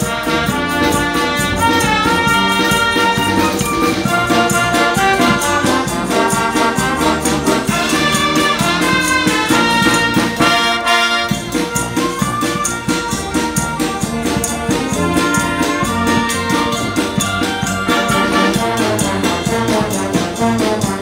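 High-school wind band playing outdoors: saxophones, brass and a sousaphone carrying the tune over bass drum and cymbals keeping the beat.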